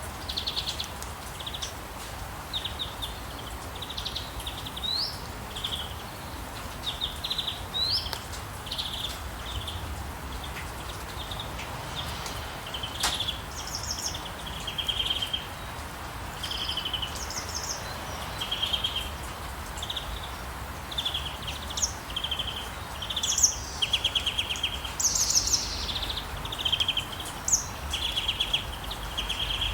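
Several small songbirds chirping and singing in short trilled phrases, one after another, over a steady background hiss of outdoor noise. There is a single sharp click about thirteen seconds in.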